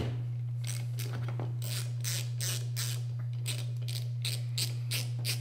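Ratchet wrench with a 14 mm socket clicking in short, evenly spaced bursts, about three a second, as it backs off the wiper-arm nut, over a steady low hum.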